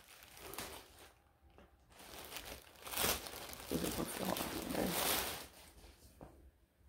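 Plastic packaging crinkling and rustling as a parcel is opened and the dress inside pulled out; the loudest rustling comes from about three to five and a half seconds in.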